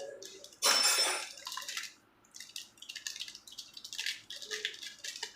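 Packaging of a piston ring set being handled and opened: a loud rustle about a second in, then a run of small crinkles and clicks.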